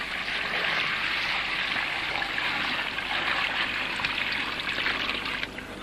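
Water poured steadily from a metal bowl onto fresh cow dung in a concrete inlet tank, the pour stopping shortly before the end. It is the dung being mixed with water into slurry for a biogas plant.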